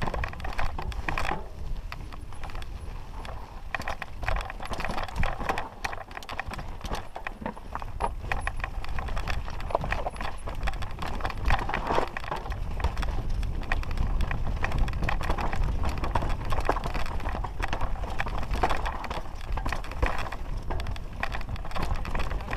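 Mountain bike descending a rocky trail: tyres clattering over loose stones with rapid, irregular knocks and rattles from the bike, over a steady low rumble.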